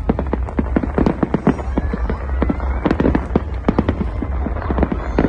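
Fireworks going off in a dense, rapid crackle of many sharp pops and bangs, several a second, over a steady low rumble.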